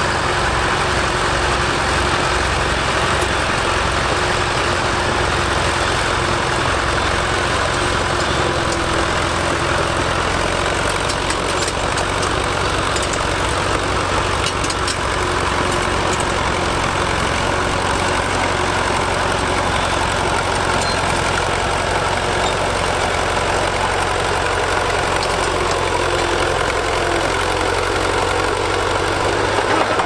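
Fordson County crawler bulldozer's engine running steadily under load as the machine pushes soil with its dozer blade.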